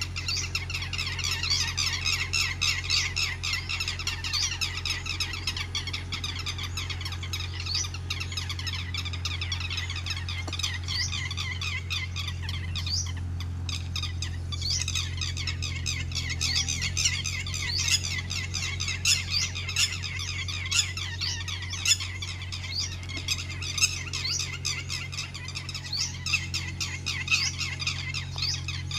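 Many birds chirping at once in a dense, continuous chatter of short, high calls, over a steady low hum.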